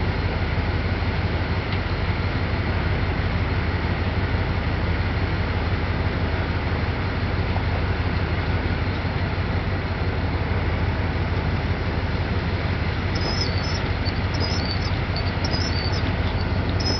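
John Deere 7700 combine running steadily while harvesting corn: a constant low drone with a rushing machinery noise over it.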